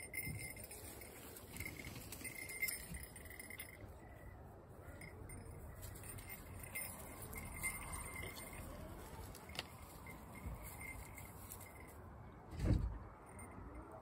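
Light metallic jingling and clinking, with one dull thump near the end.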